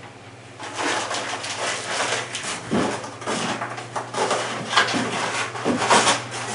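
Paper and packaging rustling and crinkling in uneven surges as the contents of an air-rifle box are handled, over a steady low electrical hum.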